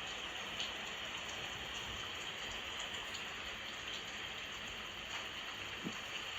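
Steady rain falling, an even hiss with faint scattered drop ticks, from a rain-sound backing track.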